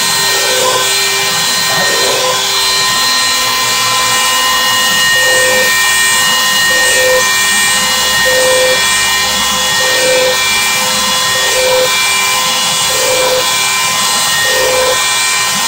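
Bosch 1 HP router spinning at speed as a CNC spindle, a loud steady high-pitched whine. A short lower hum recurs about every second and a half, the gantry's stepper motors moving.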